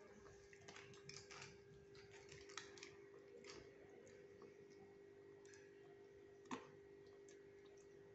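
Near silence: quiet room tone with a faint steady hum and scattered soft clicks, with one sharper click about six and a half seconds in.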